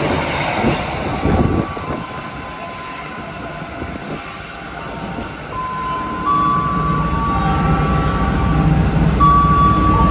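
A passenger train passing the platform at speed, its rush of wheels and air dying down within the first two seconds. From about six seconds in, a stationary train gives a steady low hum, and over it a run of long electronic tones at slightly different pitches.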